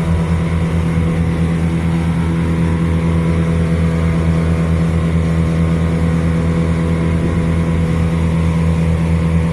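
Engine of heavy tree-removal equipment running steadily at a constant speed, a low even hum with no revving.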